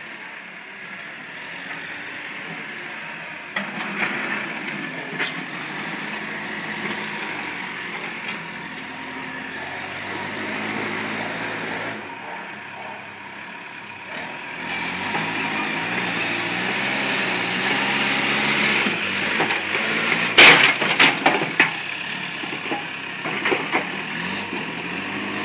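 Diesel engine of a backhoe loader working, its revs changing and running louder from about halfway. A short, loud clatter of knocks comes a little after twenty seconds in, as the bucket works the dirt.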